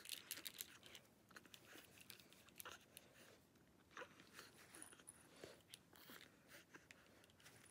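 Near silence broken by faint, scattered small clicks and rustles of a baby handling a plastic loop rattle toy, with one slightly louder click at the start.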